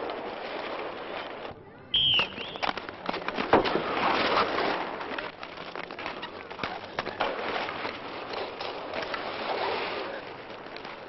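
Rink hockey on roller skates: a steady rumble of skate wheels rolling on asphalt, broken about two seconds in by a short high falling chirp and then a run of sharp clacks of sticks and ball.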